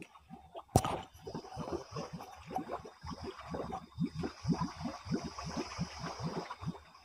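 Muddy water plopping and gurgling in quick, irregular strokes around a car sunk to its axles in a mud hole, with one sharp knock about a second in and a steady high whine behind.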